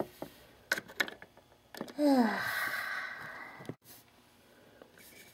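A few light clicks, then a person's long breathy sigh that falls in pitch, about two seconds in.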